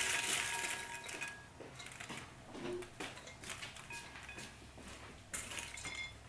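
Freshly popped popcorn pouring out of a metal pot into a large ceramic bowl: a dense rustling patter that thins out after about a second. Scattered light taps and clinks follow as the last pieces drop and the pot is moved.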